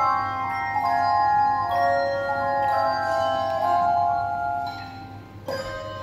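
A handbell choir ringing a piece: overlapping bell tones sustain in chords, fade near the end, and a fresh set of bells is struck with a sharp attack just before the end.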